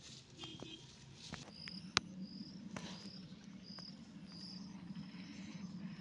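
High-pitched outdoor chirping, short calls repeated about every two-thirds of a second from about a second and a half in, over a low steady hum. One sharp click about two seconds in.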